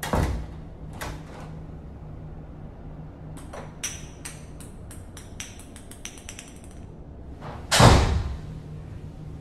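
Unseen knocking and banging: a thud, another a second later, then a quick run of a dozen or so sharp taps with a faint ringing edge, and a loud bang about eight seconds in, over a low steady hum.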